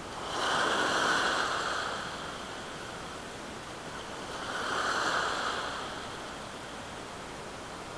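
Small waves washing in over shore rocks: two surges of rushing, foaming water about four seconds apart, with a steady hiss of surf between them.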